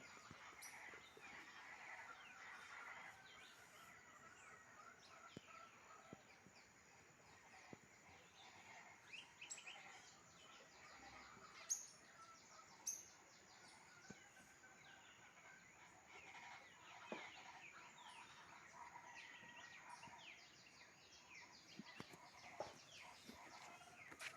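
Faint morning chorus of many forest birds calling at once, with a couple of louder, sharp calls about twelve and thirteen seconds in.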